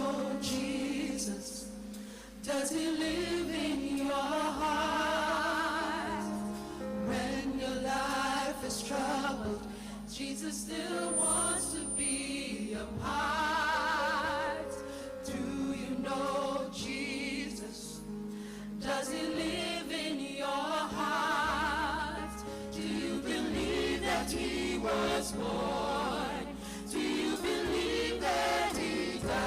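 Gospel song: voices singing with vibrato over steady held accompaniment notes.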